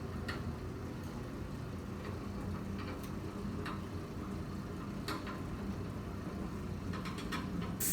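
Steady low room hum, with a few faint clicks and taps scattered through it.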